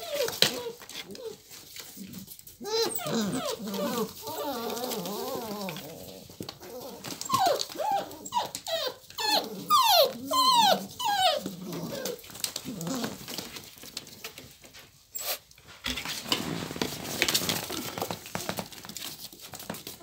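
A litter of English setter puppies whining and yelping. A wavering chorus of whines comes a few seconds in, then a run of short, high cries that fall in pitch, loudest about halfway through.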